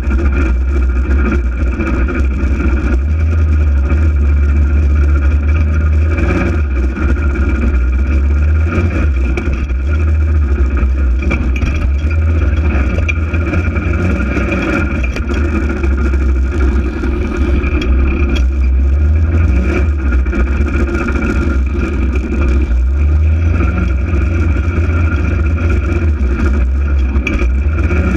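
Polaris RZR 800 side-by-side's twin-cylinder engine running under way, its pitch rising and falling a few times with the throttle.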